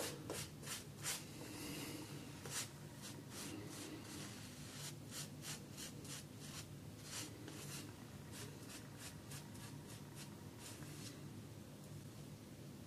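Omega boar-bristle shaving brush stroking lather onto a shaved scalp: faint, quick, irregular brushing scratches, thinning out near the end.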